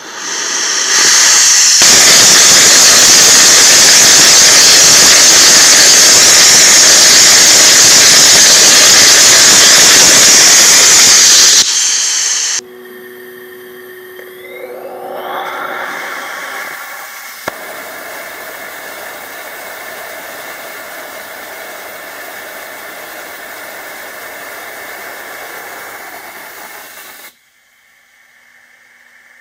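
A small RUD-14 liquid rocket engine burning gaseous oxygen and ethanol, firing on a test stand. It makes a loud, steady roar that builds up at ignition and cuts off suddenly after about ten seconds. This is followed by a quieter, steady rushing noise with a rising tone, which stops abruptly near the end.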